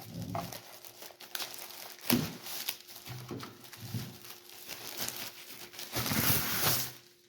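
Packing material crinkling and rustling as a boxed speaker is unpacked, with scattered light knocks. The rustling is loudest for about a second near the end.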